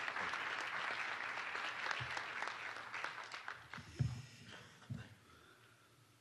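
Audience applauding, loud at first and dying away after about four seconds. Two dull thumps sound near the end of the clapping, about four and five seconds in.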